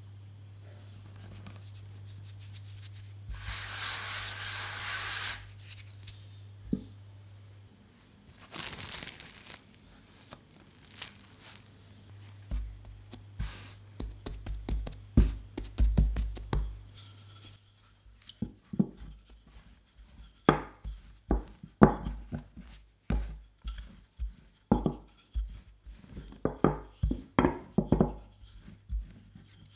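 Flour sprinkled onto a silicone pastry mat makes two short hissing bursts, the first about 3 seconds in and the second near 9 seconds. A hand then presses and flattens a ball of bread dough with dull thumps, and from about halfway on a wooden rolling pin rolls the dough out against the mat with repeated uneven knocks.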